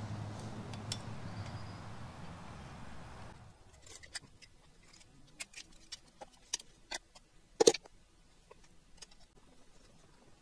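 A steady low hum that cuts off abruptly a few seconds in, followed by scattered light metallic clicks and clinks of small engine parts being handled, with one louder clink about two-thirds of the way through.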